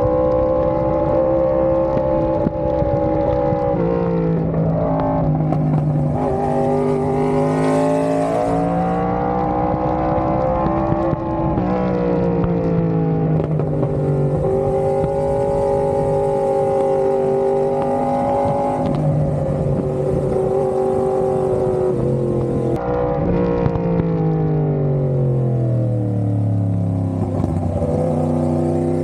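Yamaha YZF-R1's inline-four engine on the move through an aftermarket GP exhaust: the revs climb and drop sharply several times with gear changes, then sink steadily near the end as the bike slows.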